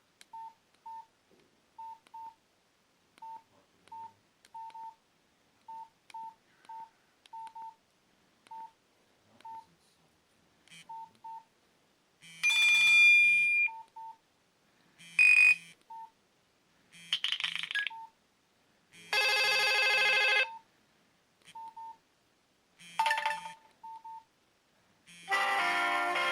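Nokia C2-01 mobile phone's short keypad beeps as its ringtone list is scrolled, then brief previews of several of its preloaded ringtones, each cut off after a second or so by the next key press. A longer ringtone starts playing near the end.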